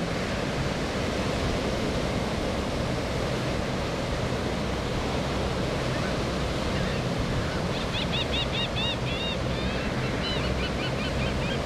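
Distant drone of a formation of SNJ Texans' radial engines under a steady rush of surf and wind. A run of short high chirps comes in near the end.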